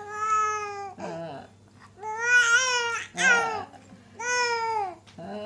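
A baby cooing and babbling: four drawn-out, high-pitched vowel sounds with short pauses between them, the contented cooing of a smiling infant.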